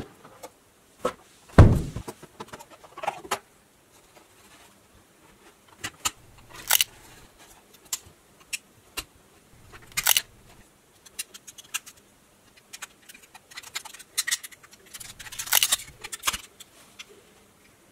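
Hard plastic clicks and rattles from a Super Wings Donnie transforming toy being handled and folded by hand, coming in scattered bursts with quiet gaps between them. A louder knock comes about one and a half seconds in.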